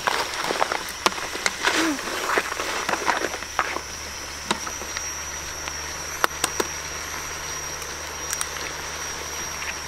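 Wooden spatula stirring crab stir-fry in a wok, with quick clicks and scrapes for the first three or four seconds. After that the busy sound stops, leaving a steady high, even whine with a low hum underneath and a few scattered clicks.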